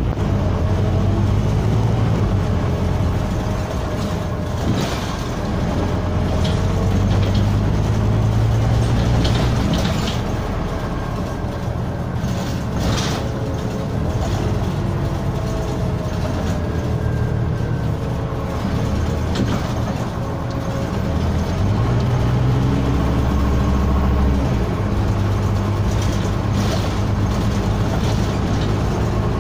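Scania NewOmnicity city bus heard from inside the passenger cabin while driving: its engine and drivetrain give a steady low drone whose pitch rises and falls as the bus pulls away and slows, with a few brief rattles and knocks from the body and fittings.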